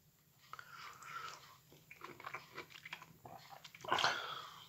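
A person chewing mandarin segments close to the microphone: faint, irregular small mouth clicks and smacks, with a brief louder mouth noise about four seconds in.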